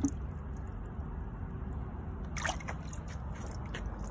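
Water sloshing in a bucket and dripping and trickling off a submersible servo motor as it is lifted out of the water.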